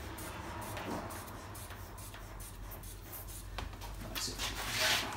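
Faint rubbing and scraping of plastic as a Ford Focus mk2 front grille is worked forward against its clips, with a louder rasping scrape about four to five seconds in.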